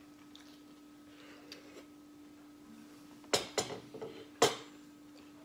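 A few sharp knocks of plates or tableware being handled at a dining table: a quick cluster about three seconds in and one more about a second later, over a faint steady hum.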